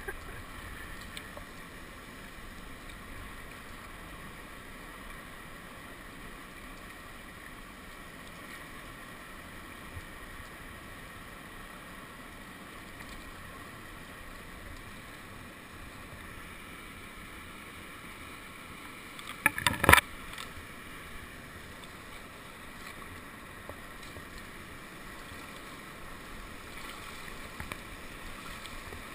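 Steady rush of whitewater from a river rapid, with a brief cluster of loud knocks about twenty seconds in.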